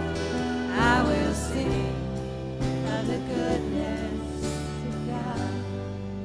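Church worship band playing a slow song, with sustained chords that change a few times and a singer's voice rising and falling about a second in.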